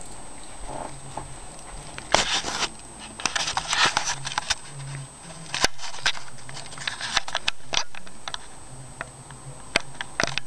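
Handling noise from a video camera being picked up and tilted: an irregular run of clicks, knocks and rubbing from about two seconds in.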